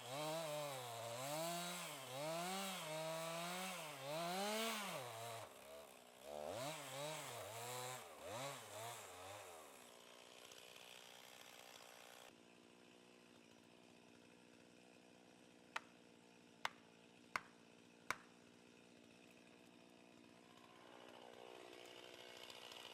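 Two-stroke chainsaw revving up and down for about ten seconds, then dropping to quieter steady running. Four sharp knocks come in quick succession about two-thirds of the way in.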